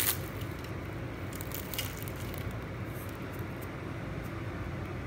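Crisp, flaky crust of a freshly baked homemade puff-pastry chicken patty crackling as it is broken apart by hand. There are a few short crackles: the sharpest at the very start, more around a second and a half in and again around three seconds in. The crackle shows that the pastry has baked into crisp, separate layers.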